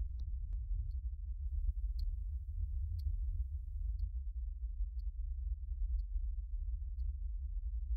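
A clock ticking evenly once a second over a low, steady rumble.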